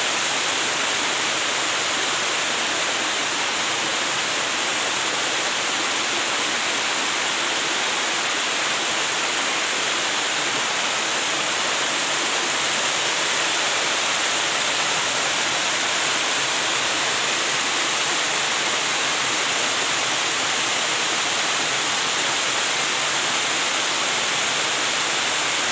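Small waterfall cascading over a stepped rock face, giving a steady hiss of rushing water that does not change. The flow is on the low side, the water being down.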